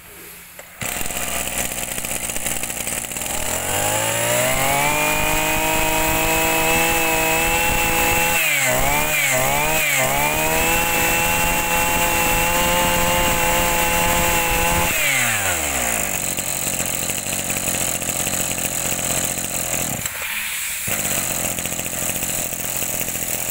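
Small two-stroke brush cutter engine running, revved up to full throttle, held high with the throttle eased off and back on a few times, then let back down to a lower, rougher speed.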